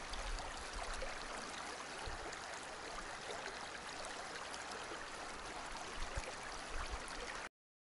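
Shallow stream running over stones, a steady rush of water with a few soft low bumps. It cuts off abruptly near the end.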